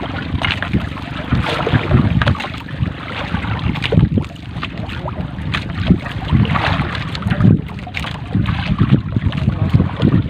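Wind buffeting the microphone and water slapping against a boat's hull, with irregular knocks, rustles and splashes as a wet trammel net is hauled by hand over the gunwale.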